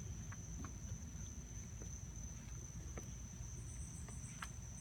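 Insects trilling outdoors in one steady, high, unbroken note, over a low rumble and a few faint clicks.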